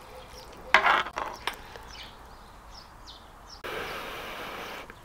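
A short, loud eating sound about a second in, with small birds chirping faintly in the background. Near the end a steady hiss starts and stops abruptly, lasting just over a second.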